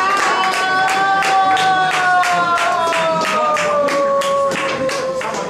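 Audience clapping in a steady rhythm, about three claps a second, after a live metal cover, with voices holding a long note that slides slowly down in pitch over the clapping.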